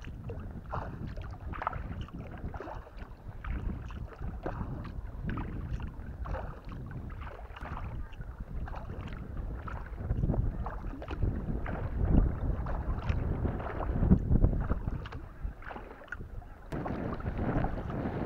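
Choppy water lapping and splashing against a kayak's hull as it moves, in a quick uneven run of small slaps, over wind rumbling on the microphone that is heaviest a little past the middle.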